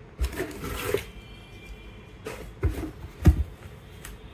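Corrugated-cardboard packing rustling and scraping inside a cardboard shipping box as a hand pulls it out, in three bursts. The third, about three seconds in, includes a dull thump and is the loudest.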